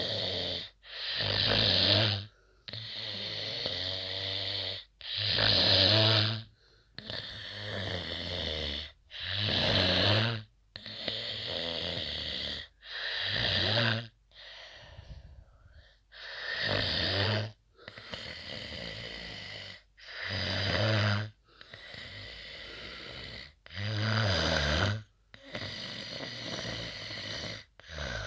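A person snoring heavily: loud rasping snores about every three and a half to four seconds, each followed by a quieter breath.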